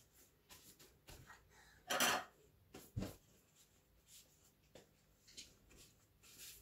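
Thin pastilla pastry sheets rustling and crinkling as hands fold them over the filling, in scattered short touches. There is a louder crinkle about two seconds in and a soft thump a second later.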